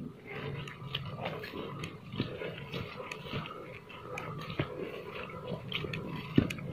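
Footsteps on a muddy dirt footpath: irregular soft steps and scuffs, with one louder step near the end.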